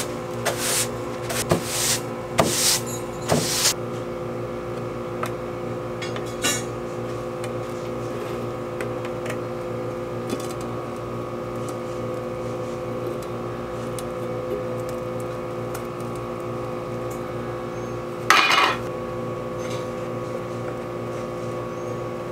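Straw broom bristles sweeping across a plywood panel in several quick strokes during the first few seconds, then a metal paint can being opened: faint clinks and one short, loud scrape about eighteen seconds in as the lid is pried off. A steady hum with several tones runs underneath throughout.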